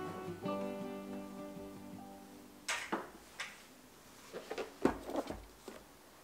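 Background music of picked acoustic guitar that fades out over the first two or three seconds. After that come a few soft clicks and knocks of objects being handled.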